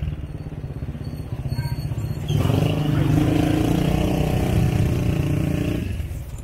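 Motorcycle engine running while riding along a street, heard from the pillion seat. It gets louder about two seconds in as the bike picks up speed, then cuts off sharply near the end.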